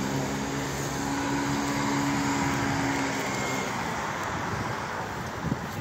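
Street traffic noise with the steady hum of a vehicle engine running close by, which fades out about three and a half seconds in, leaving the general wash of traffic.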